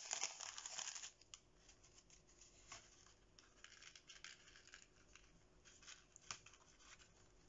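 Thin plastic bag of sequins crinkling and rustling in the hand for about the first second, then only faint scattered rustles and light ticks.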